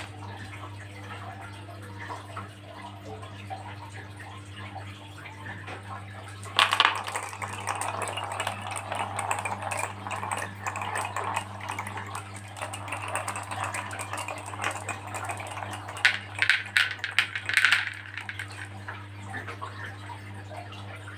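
Marbles rolling and clattering down a marble run track. A sharp clack about six and a half seconds in starts a continuous rolling rumble, and a quick run of clacks comes about three quarters of the way through, over a steady low hum.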